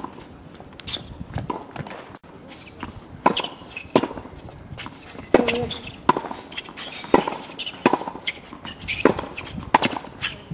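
Tennis rallying on a hard court: the ball is struck by a racket and bounces, giving a series of sharp pops roughly every second, along with shoes moving on the court.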